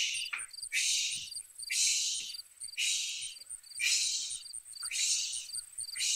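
Rhythmic 'swish' sounds, about one a second, imitating pushing through tall grass, over a steady background of chirping crickets.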